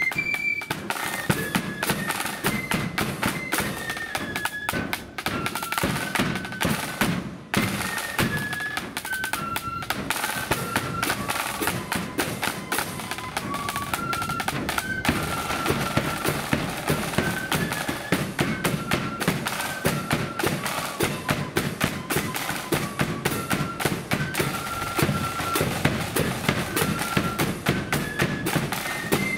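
Marching flute band playing a tune: flutes in unison carrying a stepping melody over steady snare drums, a bass drum and clashing cymbals.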